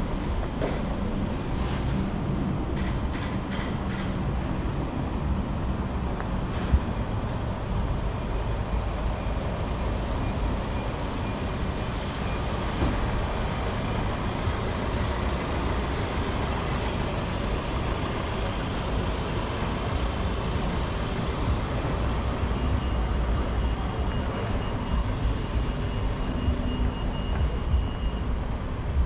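Busy city street traffic: a steady low rumble of passing vehicles' engines and tyres, with one sharp knock about seven seconds in.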